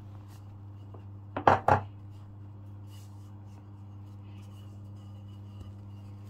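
A wooden rolling pin knocks on a wooden board three times in quick succession about a second and a half in, while scone dough is rolled out. A steady low hum runs underneath.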